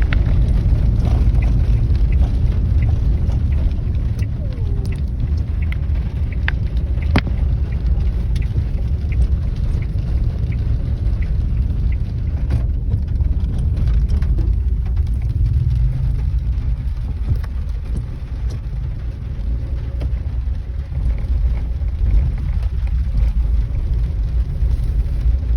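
Rain falling, with scattered sharp drip clicks, over a steady low rumble.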